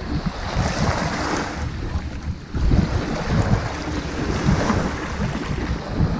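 Ocean waves washing onto a sandy beach, two washes of surf swelling and easing, over a heavy low rumble of wind on the microphone.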